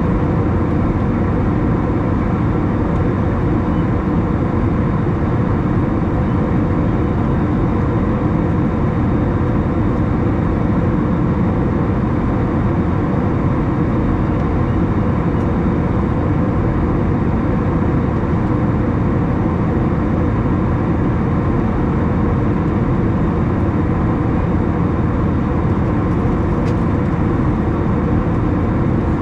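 Steady cabin noise inside an Airbus A321 in flight after passing 10,000 ft: a constant, even mix of jet engine sound and airflow over the fuselage, with a faint low hum under it and no changes.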